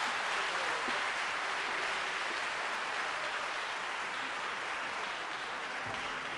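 Audience applauding in a steady patter of clapping that slowly dies down.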